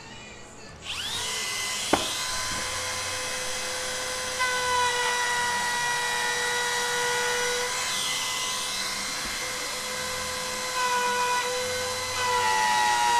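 Milwaukee Fuel compact router spinning up about a second in to a steady high whine, flush-trimming the edge of a plywood glue-up; the pitch shifts slightly near the end as the bit cuts.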